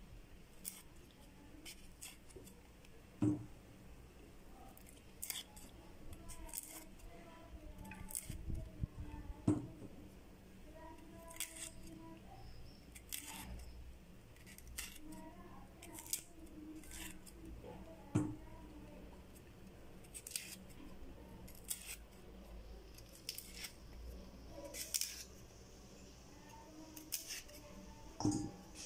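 A knife peeling the fibrous skin off drumstick (moringa) pods. Many short, irregular scrapes and snaps sound as strips are pulled away, with four louder knocks on the wooden chopping board.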